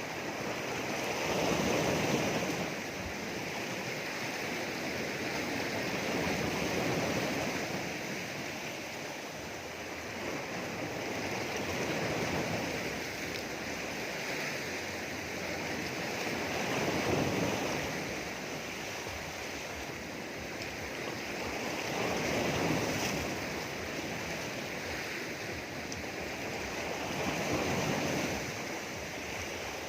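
Sea waves washing in around rocks, with a steady hiss of surf that swells into a louder surge about every five seconds.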